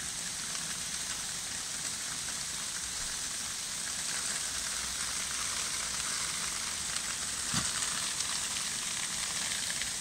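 Small hail falling steadily on grass, parked cars and the shelter roof: a dense, even hiss of pellets, with one sharper tap about seven and a half seconds in.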